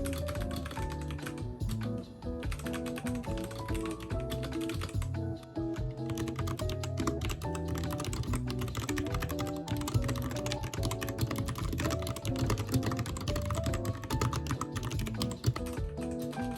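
Rapid typing on a computer keyboard, a dense run of key clicks, over background music.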